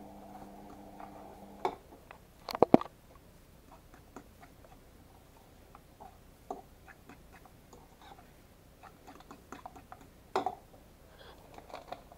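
A metal fork stirring an egg, cream and grated-cheese mixture in a bowl, scraping and tapping against the bowl in scattered light clicks. There is a loud clatter of knocks about two and a half seconds in and another sharp knock near the end. A steady low hum stops just under two seconds in.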